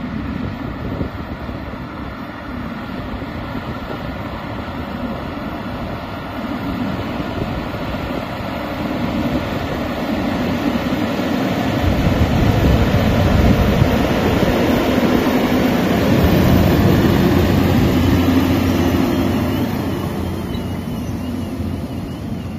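Ensign hybrid tractor running under load as it pulls a multi-furrow mouldboard plough through the soil. It grows louder as it approaches, is loudest as it passes close by about midway through, and eases off near the end.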